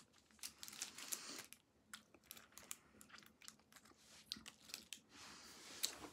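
Faint mouth noises of a Toxic Waste sour hard candy being sucked: irregular little clicks and sucking sounds as the candy moves against the teeth.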